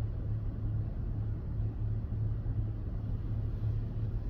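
Steady low rumble of a car heard from inside the cabin, an even drone with no distinct events.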